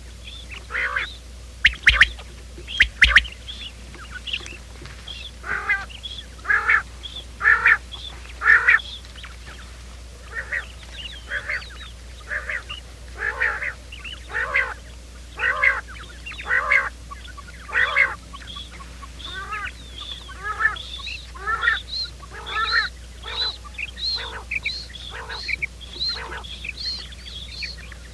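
Quail calling over and over in a string of short calls about one a second, with quicker, higher notes joining in the second half; a quail lure-call recording. Two or three sharp clicks sound near the start, over a steady low hum.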